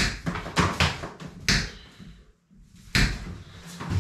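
Irregular knocks and taps, about ten of them, as coaxial TV aerial cables are handled against a wall, with a short quiet gap a little past halfway.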